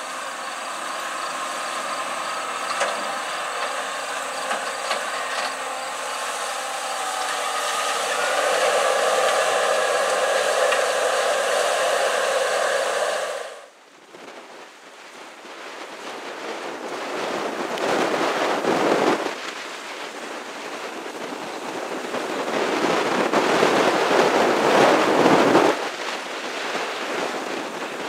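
A Case IH Steiger articulated four-wheel-drive tractor's engine running steadily under load, pulling a disk ripper through corn stalks; it grows louder about eight seconds in. It cuts off suddenly and gives way to a rushing noise with two louder gusts of wind on the microphone while a Case IH 9370 Steiger works the field.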